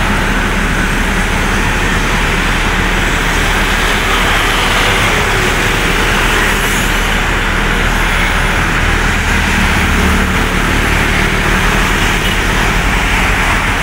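Busy road traffic: a steady stream of motorcycles and cars passing close by on a multilane road, with a low engine rumble under the constant tyre and engine noise.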